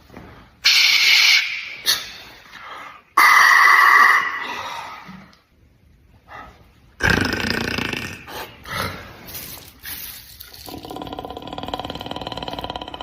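A string of short, sudden mouth-made beatbox noises imitating emoji sounds, with a held buzzing tone in the last couple of seconds.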